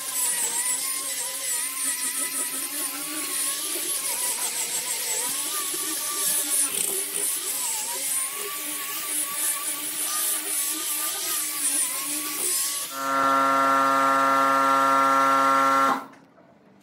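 Electric angle grinder with a sanding disc sanding a wooden tabletop: a hissing whine whose pitch wavers up and down as the pad is pressed and moved over the wood. About 13 s in, a louder, steady hum takes over for about three seconds and then cuts off suddenly.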